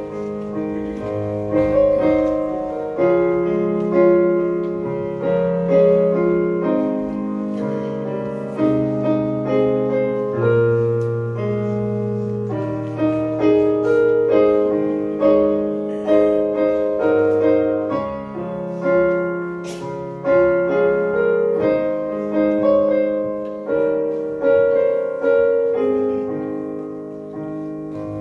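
Piano playing a hymn tune in full, slow chords, each chord struck and left to fade. It is the hymn's introduction before the congregation begins singing.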